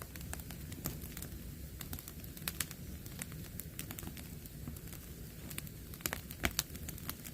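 Wood bonfire crackling with frequent pops and snaps over a steady low background, with a cluster of louder pops near the end. The firewood is freshly lit and still burning on the surface, not yet burned through to the core.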